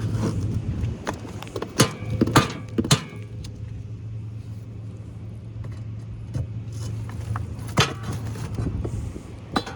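A few sharp metallic knocks and clinks, a cluster about two to three seconds in and two more near the end, as a heavy forklift battery cell wedged against its neighbour is worked at, over a steady low hum.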